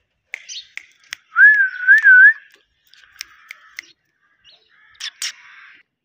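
A rose-ringed parakeet's short chirps and clicks, broken about a second in by a loud, pure whistle that rises and falls twice over about a second. Near the end comes a harsher, noisier call.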